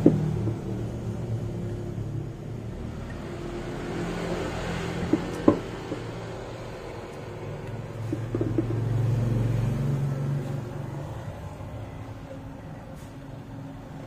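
Plastic snail-type motorcycle horns and alligator-clip test leads being handled: a few sharp clicks and taps over a low rumble that swells about nine seconds in. The horn itself is not yet sounding.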